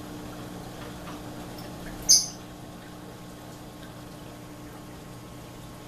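Steady low hum of reef aquarium equipment running, with one sharp, loud click about two seconds in.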